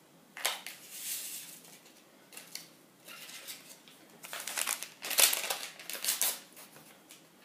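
A small paper sachet of vanilla sugar crinkling and tearing as it is opened and emptied, in a string of short, dry rustles.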